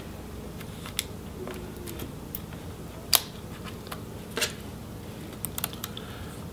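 Scattered small plastic clicks and taps of hands working display cables loose from the routing in a laptop's chassis, the loudest click about three seconds in and a quick run of light ticks near the end.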